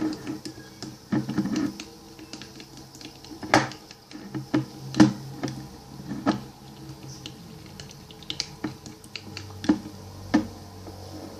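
Irregular clicks and taps of a plastic spoon against a plastic bowl while stirring slime mixture, a few strokes louder than the rest.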